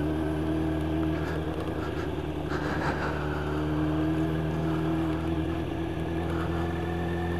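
Yamaha YZF 1000cc motorcycle's inline-four engine running steadily at an even, low pace, its pitch holding nearly constant throughout.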